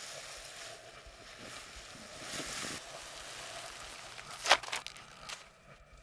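Nylon fabric of a Niviuk Skin 1 paraglider wing and its stuff sack rustling as the wing is gathered and packed, with one sharp fabric snap about four and a half seconds in as the sack is shaken open.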